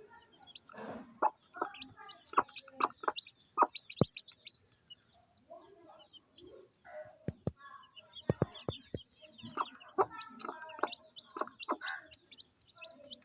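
Hen clucking repeatedly while her chicks peep in high, thin chirps, with scattered sharp taps among the calls.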